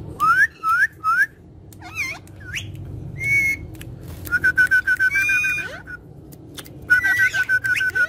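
Alexandrine parakeets whistling: three quick rising whistles at the start, then a few more calls and a short held note, then a fast run of short chirps repeated at one pitch in the middle and another near the end.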